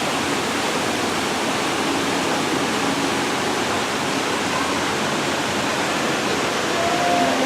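Steady rushing of water from an indoor waterfall.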